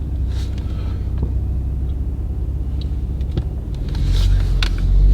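Steady low engine and road rumble inside the cabin of a Ford Raptor pickup on the move, swelling a little about four seconds in.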